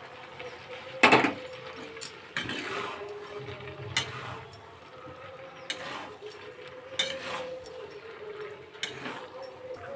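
Spoon stirring and scraping cabbage, potato and chana dal around a metal kadai, knocking against the pan about seven times, loudest about a second in. A faint steady hum runs underneath.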